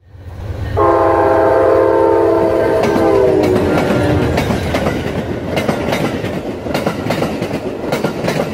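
An Amtrak diesel locomotive passes close by, sounding its multi-note horn for about three seconds, the chord dropping in pitch as it goes by. Then comes the rumble and irregular clacking of the double-deck passenger cars' wheels over the rails.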